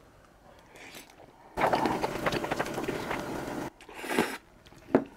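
A person slurping Chapagetti instant noodles in sauce off a fork: one long loud wet slurp of about two seconds that cuts off suddenly, then two short slurps near the end.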